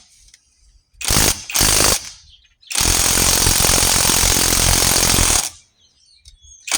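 Cordless 1/2-inch drive impact wrench hammering on a wheel lug nut: two short bursts, then a steady burst of about two and a half seconds, and another starting near the end. The wrench was at first run in the wrong direction before the nut came off.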